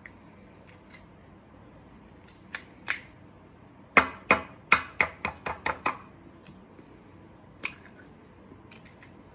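Sharp taps and clicks of kitchenware being handled: two about two and a half seconds in, a quick run of about ten taps a second and a half later, then one more near the end.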